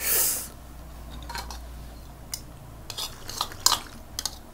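Spoons and forks scraping and clinking against plates and dishes as a meal is eaten: a brief, loud scrape at the start, then scattered sharp clinks, more of them towards the end.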